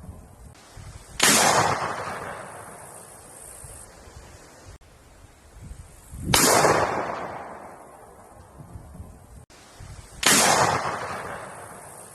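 Three single gunshots, about four to five seconds apart, each a sharp crack followed by a long echoing tail that dies away.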